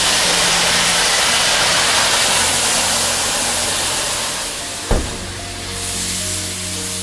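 Class 78 (Prussian T 18) steam tank locomotive blowing steam from its cylinder drain cocks: a loud, steady hiss that eases after about four seconds. A single sharp knock about five seconds in, with music playing underneath.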